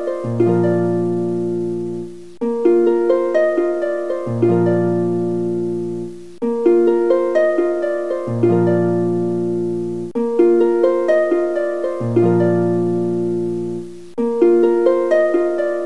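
Background music: a plucked-string, harp-like tune of quick notes over low held bass notes. The same phrase loops about every four seconds.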